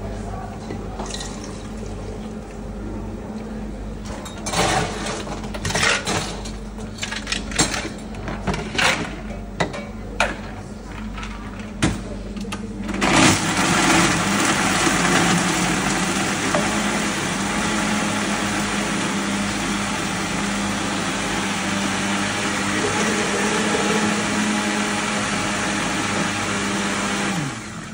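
Countertop blender running steadily, blending a drink, then switching off near the end. Before it starts, scattered knocks and clatter from handling cups and utensils.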